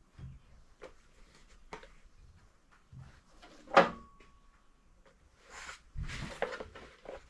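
Steel plates being handled and set in position on a welding table: light knocks, one sharp metal clank with a short ring about four seconds in, then scraping and shuffling.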